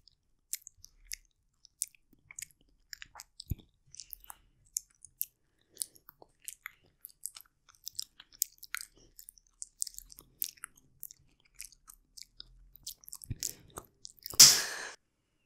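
Close-miked mouth sounds of a person chewing soft, wet mangosteen fruit: scattered wet clicks and smacks, with a loud rushing burst about a second long near the end.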